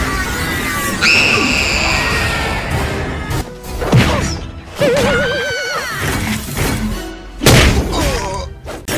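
Animated-cartoon soundtrack: background music with cartooney sliding and warbling sound effects. Two loud crash-like impact sound effects come about four and seven and a half seconds in.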